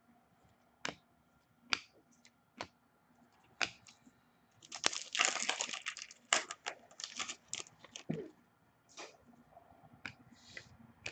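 Foil wrapper of a hockey card pack being torn open and crinkled, densest for a few seconds in the middle, with scattered clicks and taps of cards being handled before and after.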